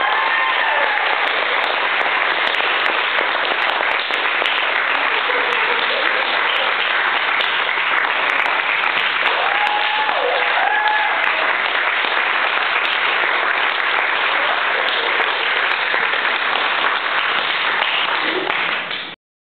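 Audience applauding steadily, with a few cheering voices calling out near the start and about halfway through; the applause cuts off suddenly near the end.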